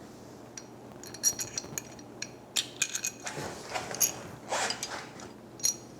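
Small steel bolts and hand tools being handled: a scatter of light metallic clinks and taps with brief ringing, and a few short scrapes, as the bolts are picked up and readied for threading into the brake line bracket.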